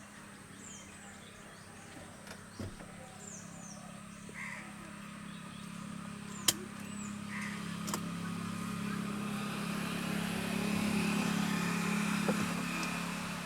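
Outdoor ambience dominated by a motor vehicle's low engine hum that builds through the second half and then eases off. Crows caw a few times, with short high chirps from small birds, and there is a single sharp click about six and a half seconds in.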